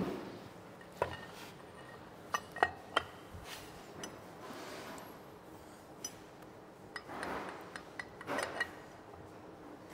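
Steel parts clinking and knocking as a steel sleeve is handled and set down over a transmission shaft and clutch pack. There are several separate sharp clinks, the loudest a quick cluster about two and a half to three seconds in, and more light clinks with some rubbing and handling noise near the end.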